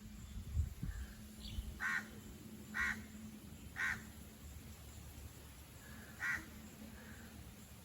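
A bird calling outdoors: four short, harsh calls, the first three about a second apart and the last about two and a half seconds later. Low wind rumble on the microphone in the first second.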